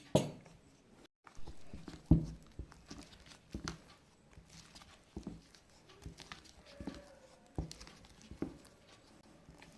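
A utensil mixing milk into cake batter in a bowl, with soft, irregular knocks against the bowl and faint wet scraping.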